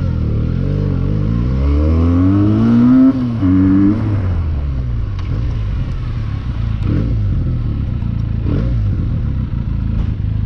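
Benelli TNT 300's parallel-twin engine heard from the bike while riding. The revs climb for a couple of seconds, dip and rise once more around the middle, then settle into a steady lower run.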